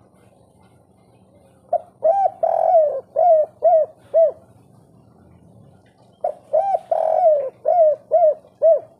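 Spotted dove (tekukur) singing its cooing song twice. Each phrase runs a few short coos, then one longer drawn-out coo, then three short closing coos: the 'kuk 3' song type.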